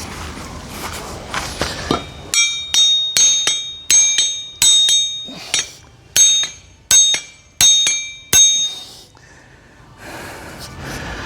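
Metal slasher blade struck repeatedly to drive its wooden handle further up into the socket: about a dozen sharp, ringing metallic blows, roughly two a second, starting about two seconds in and stopping a couple of seconds before the end.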